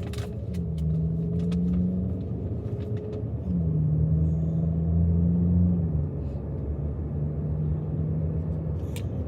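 Car engine and road rumble heard from inside the cabin while driving. The engine hum comes and goes and shifts in pitch a few times, with a few light clicks over it.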